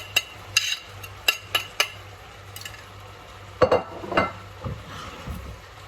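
A spoon stirring chicken, mushrooms and broccoli in a pan, knocking and clinking against the pan about half a dozen times in the first two seconds, then two louder knocks a little past the middle.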